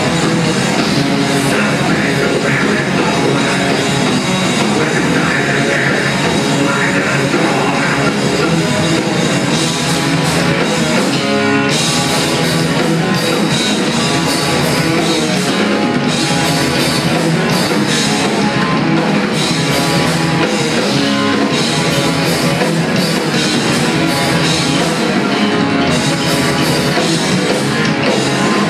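A live metal band playing loudly and without a break: electric guitars and a drum kit.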